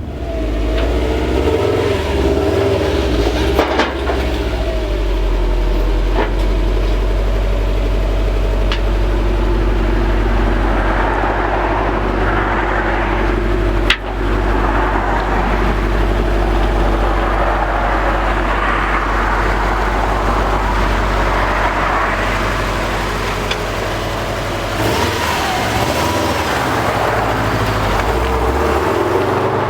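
Car driving, heard from inside the cabin: a steady low engine rumble with tyre and road noise that picks up as the car pulls away, then holds steady. There is a single sharp click about halfway through.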